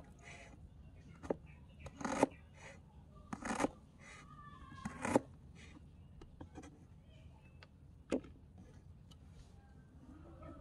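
A small knife slicing a red onion on a miniature wooden cutting board: crisp cuts with the blade tapping the wood, irregularly spaced, the loudest about every second or two.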